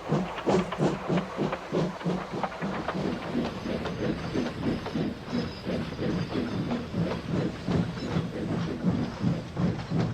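Steam locomotive running along the line, its exhaust chuffing in a steady rhythm of a few beats a second, with a hiss of steam and rail clatter underneath.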